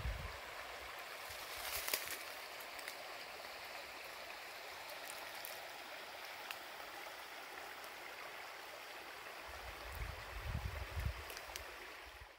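Running stream water, a steady rushing, with a couple of low rumbles near the start and about ten seconds in.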